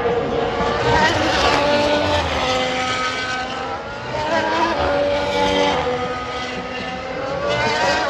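2021 Formula 1 cars, 1.6-litre turbocharged hybrid V6 engines, passing through a corner one after another, each engine's high-pitched note falling and rising in pitch as the car goes by.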